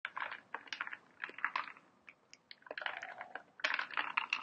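Drinking from an aluminium can of fizzy Diet Coke: bursts of crackling fizz and sloshing liquid, about five in all, with short gaps between swigs.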